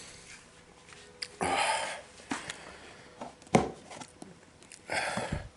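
A man's two hissing breaths through the mouth, about a second and a half in and again near the end, with a sharp mouth click between them: breathing hard against the burn of a Carolina Reaper chili.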